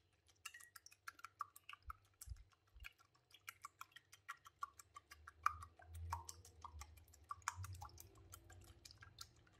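Metal wire whisk beating eggs in a bowl, its wires clicking faintly and quickly against the bowl's sides, several ticks a second.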